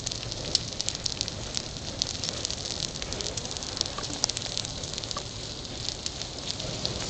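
Bee hive burning: fire crackling with many quick sharp pops over a steady hiss.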